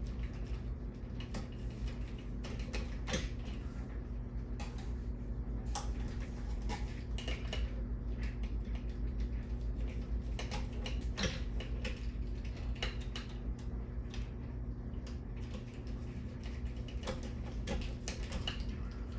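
Irregular clicks and light knocks from handling a ceiling fan's blades and screws, with a driver at work, over a steady low hum.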